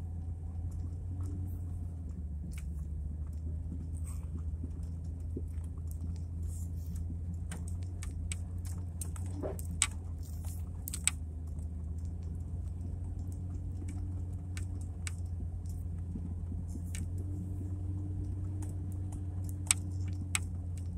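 Inside the cabin of a vehicle driving on a snow-covered road: a steady low drone of engine and tyres, with scattered small clicks and rattles and a few sharper ticks.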